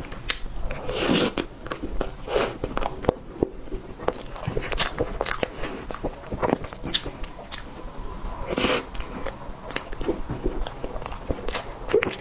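Close-miked eating sounds: bites, chewing and wet mouth smacks, with a scatter of small clicks throughout.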